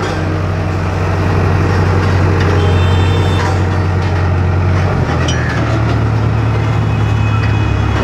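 Case tandem steel-drum road roller's diesel engine running with a steady low hum. About five seconds in, the hum steps up slightly in pitch.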